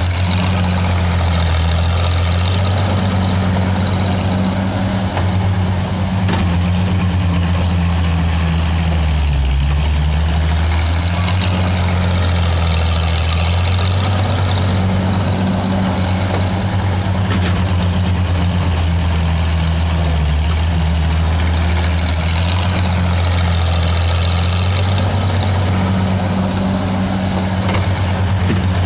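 1961 Bantam T-350 cable excavator running steadily while digging, its engine note shifting a few times as the hoe bucket digs, lifts and swings back. A high whine comes and goes a few times over the engine.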